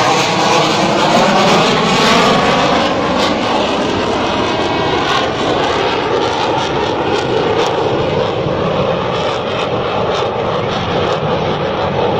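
Fighter jet passing overhead and flying away: a loud, rushing jet-engine noise whose whining tone drops in pitch over the first couple of seconds, then fades only slightly.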